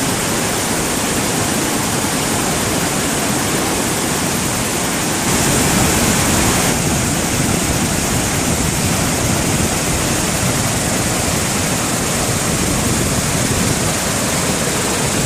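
Steady rushing roar of the Waikato River's white water pouring through the narrow Huka Falls canyon, getting a little louder about five seconds in.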